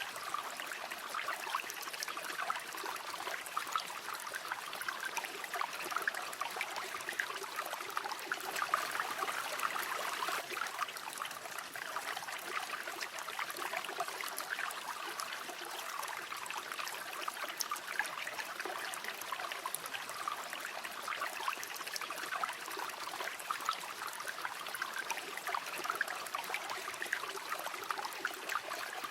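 A river flowing steadily, with a busy trickling and babbling of water over stones.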